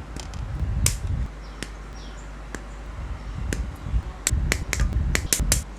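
Sharp clicks and snaps of plastic model-kit parts being handled, a few single clicks and then a quick run of them near the end, with dull bumps of handling on the work surface.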